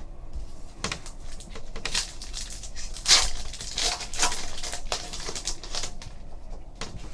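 Basketball trading cards and their foil pack wrappers being handled: a run of short, scratchy rustles and crinkles, busiest in the middle.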